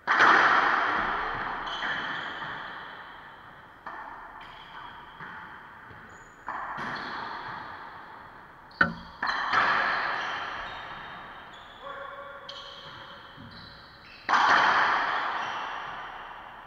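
Racquetball rally: racquets striking the hollow rubber ball and the ball smacking the court's walls and floor, about ten hits spaced one to two seconds apart. Each hit rings out in a long echo off the bare walls. The hardest hits come at the start, about nine seconds in, and about fourteen seconds in.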